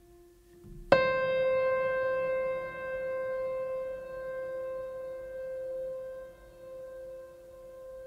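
Background music: a soft sustained tone, then about a second in a bell-like note is struck and rings on, slowly fading.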